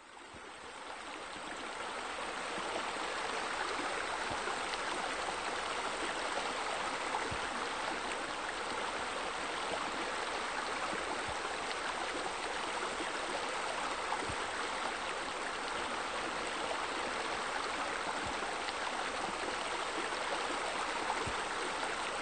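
Steady flow of running water that fades in over the first couple of seconds and then holds steady.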